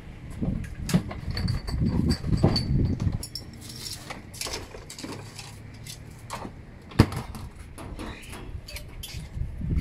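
Ice clattering and knocking as it is dug out of a cooler by hand, with scattered knocks and a low rumble at first and one sharp click about seven seconds in.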